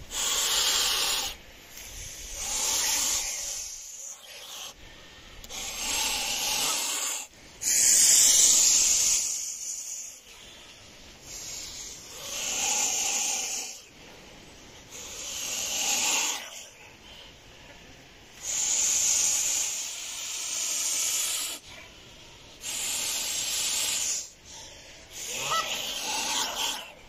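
Domestic geese hissing at close range, about nine long breathy hisses of one to three seconds each, separated by short pauses. The hiss is the goose's threat display, a warning to back off.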